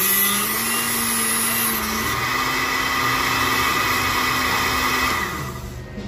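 Samurai blender base's motor running at speed with its coupling removed, the bare shaft spinning against a small piece of sandpaper held to it to clean off rust. The motor is switched off about five seconds in and runs down.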